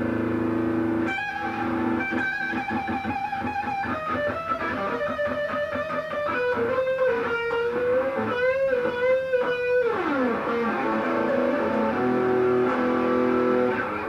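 Guitar music: a plucked guitar melody with wavering, bent notes and a note sliding down about ten seconds in.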